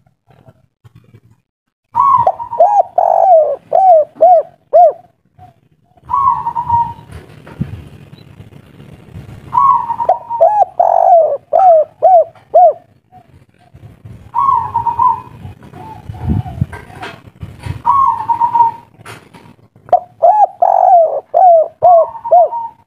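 Spotted dove (tekukur) cooing in about six phrases. Each phrase opens with a held note and runs into a quick string of short coos, with brief pauses between phrases.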